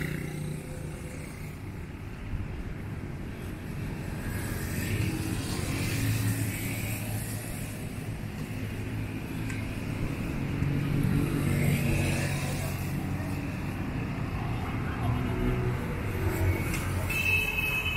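Street traffic on a wide city road: motorcycle and car engines passing, swelling twice over a steady background hum of traffic.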